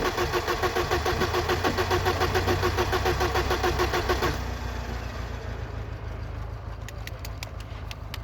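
1995 BMW E34's starter cranking the engine in an even rhythm, about five beats a second, without it catching: a no-start. The cranking stops about halfway through, leaving a quieter steady hum with a few clicks near the end.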